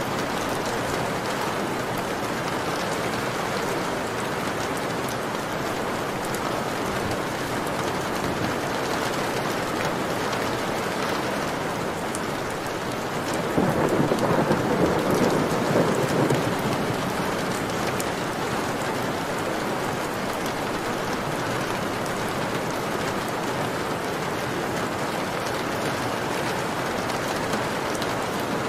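Rain falling steadily on window glass, an even hiss of drops. About halfway through it swells for a few seconds into a heavier, louder wash of water over the glass.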